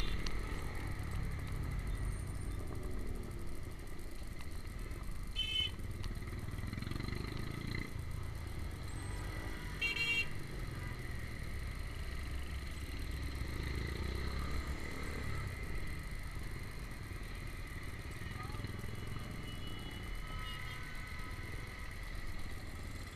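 Small 110–125 cc motorcycle riding through traffic: steady engine and wind rumble on the rider's microphone, with short horn beeps about five seconds in, about ten seconds in, and near the end.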